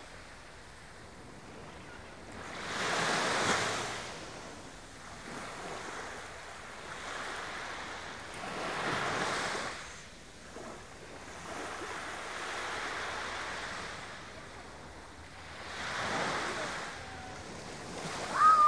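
Small waves breaking and washing up a sandy beach: a low steady surf hiss that swells three times, each swell lasting a second or two. A brief high-pitched call right at the end.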